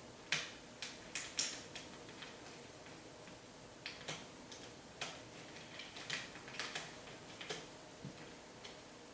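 Small hard parts of a belt-driven motorized track clicking and tapping as they are handled and fitted together. The clicks are irregular and sharp, with a cluster in the first second and a half and more scattered through the middle.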